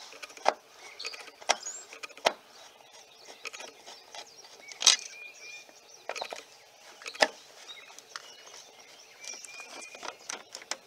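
Screwdriver turning out the small screws of a 1994 Chevy Cheyenne's front turn-signal lamp: scattered sharp clicks and light scraping of the tip in the screw heads, with a few faint high chirps.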